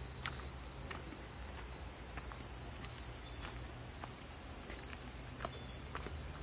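Insects in the forest keep up a steady, high-pitched drone on a single held tone, with scattered light footsteps on the leaf-covered track.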